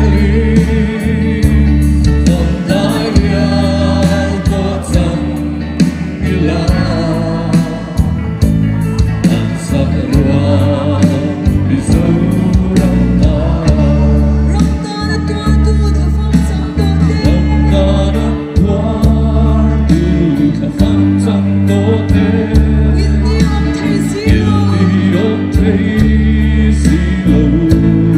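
A large mixed choir singing a Mizo song in unison, reading from song booklets, over amplified accompaniment with deep bass notes and a steady beat.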